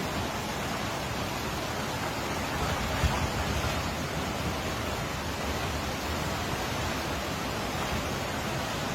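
Heavy hurricane rain and wind making a steady rushing noise, with no break or change.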